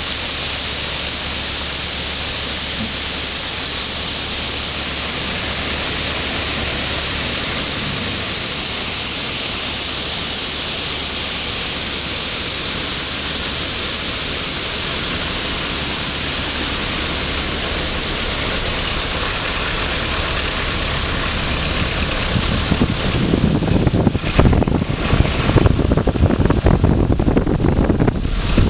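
Waterfall cascading down a rocky mountain gorge: a steady, even rush of falling water. About 22 seconds in it gives way to irregular gusts of wind buffeting the microphone.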